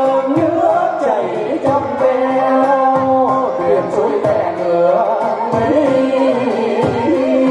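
Vietnamese chầu văn music playing: a bending melodic line over repeated drum beats.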